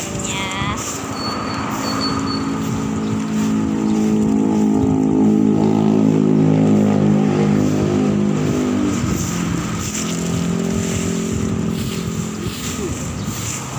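A motor vehicle driving past on the street: its engine hum grows louder to a peak about halfway through, then fades, and a second, fainter vehicle follows near the end.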